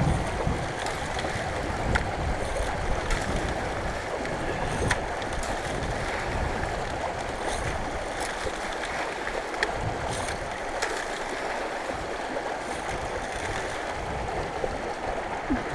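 Shallow stream water rushing steadily through a small drop-riffle sluice, with scattered light clicks and taps of gravel as it is scooped from a plastic bucket and fed into the sluice.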